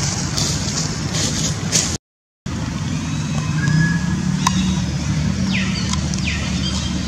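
Steady hum and rumble of a motor vehicle engine with background noise, broken by a brief gap of silence about two seconds in. Near the end, two short high calls each drop quickly in pitch.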